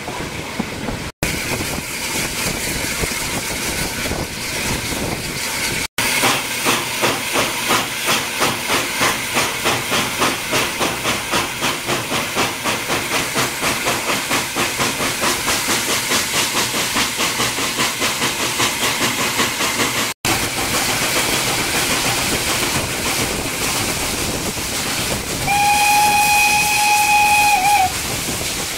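Steam locomotive at work, its exhaust beats chuffing in a steady rhythm that quickens as it pulls away, over hiss and rail noise. Near the end a steam whistle blows one steady note for about two seconds.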